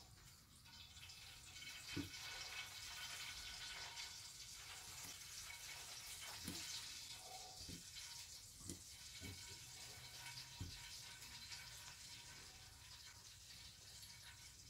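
Soft, scattered knocks and taps as sole fillets are pressed and turned in flour on a plate, over a steady faint hiss.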